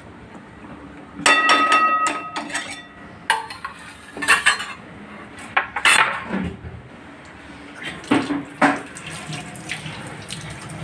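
Spatula knocking and scraping against a metal kadai. There is a ringing metallic clang about a second in, then several more separate knocks and scrapes.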